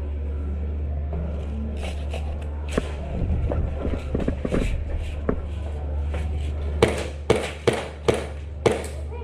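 Airsoft gun firing five sharp cracks in quick succession, about half a second apart, near the end, with lighter scattered clicks before them. A steady low hum runs underneath.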